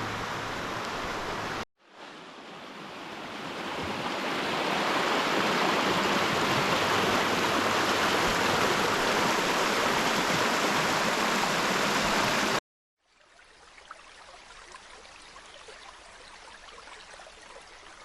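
River water rushing over rapids, growing louder over the first few seconds and holding steady. It breaks off suddenly about twelve seconds in and gives way to a much quieter rippling flow with small splashes.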